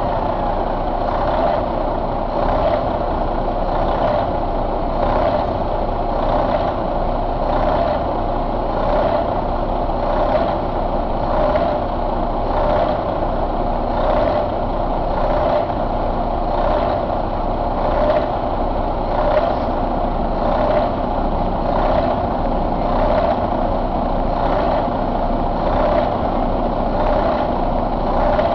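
Detroit Diesel DD13 12.8-litre inline-six diesel idling steadily, with a regular pulse about every two-thirds of a second.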